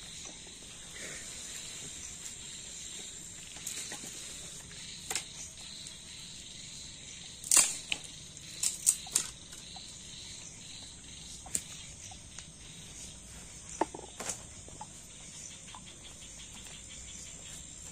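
Steady high-pitched drone of night insects, with scattered knocks and snaps as firewood sticks are handled, the loudest cluster coming about halfway through.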